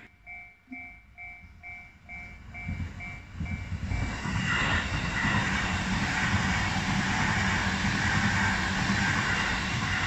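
Japanese level-crossing warning bell ringing about twice a second, then from about four seconds in a JR Nambu Line electric commuter train passes close by. The loud, steady rumble of its wheels on the rails drowns out the bell.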